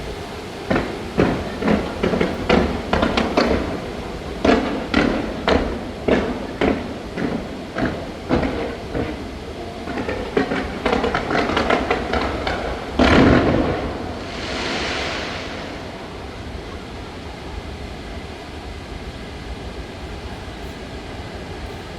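Aerial fireworks going off in a rapid series of sharp bangs, about two a second, ending in one loudest bang about 13 seconds in, followed by a short crackling hiss. A low steady rumble remains afterwards.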